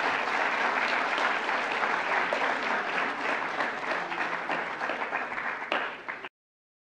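Audience applauding, thinning a little toward the end, then cut off abruptly about six seconds in.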